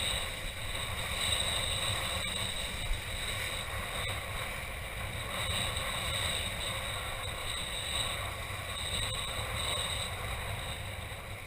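Strong wind buffeting the microphone with a low rumble, over water rushing and splashing.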